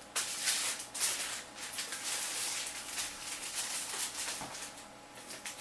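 Clear plastic wrap and bags crinkling and rustling as they are handled, in uneven swells.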